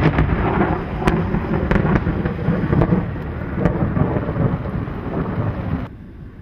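Thunder rolling: a loud, low rumble with crackles through it, cutting off abruptly near the end.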